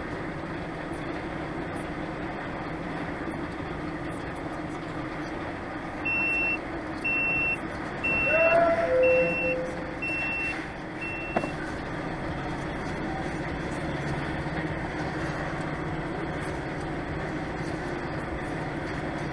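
Steady drone of a truck's engine and cab, with a series of six short, high electronic beeps about one a second, like a reversing alarm, partway through. A brief louder tone overlaps the middle beeps.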